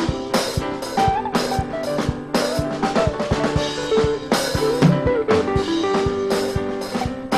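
Live gospel band playing an instrumental passage: a drum kit keeps a steady beat with snare and bass drum hits under held chords whose notes shift.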